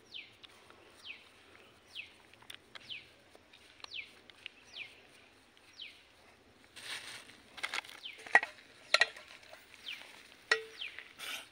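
A bird calling over and over, a short falling chirp roughly every 0.7 s. From about seven seconds in come wet slaps and squelches of hands patting and pressing ragi dough around eggs, with a few sharp clicks.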